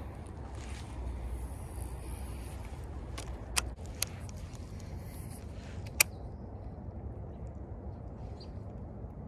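A cast and retrieve with a baitcasting rod and reel, heard as a few sharp clicks from handling the rod and reel, the loudest about six seconds in, over a steady low wind rumble on the microphone.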